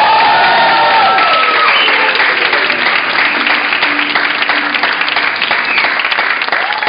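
Small audience clapping and cheering, with a few high shouts rising and falling over the applause.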